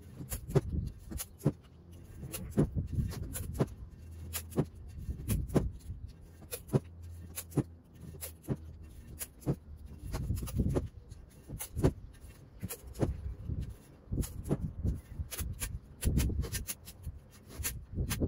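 Painter's masking tape being pulled off the roll, torn and pressed by hand onto an aluminum wheel rim: many irregular sharp clicks and crackles.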